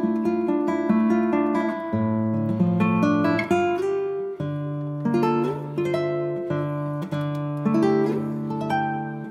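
Background music: an acoustic guitar picking and strumming a steady run of notes.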